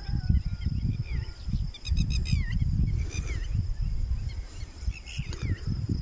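Wind buffeting the microphone in gusts, with birds calling over it in short, repeated chirps, a quick cluster about two seconds in and more near the end. A thin steady high tone runs underneath.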